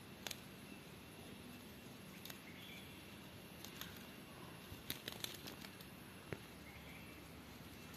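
Wings of a common leopard butterfly fluttering and tapping against window glass: faint scattered light ticks, bunched together about five seconds in, over a quiet steady room hiss.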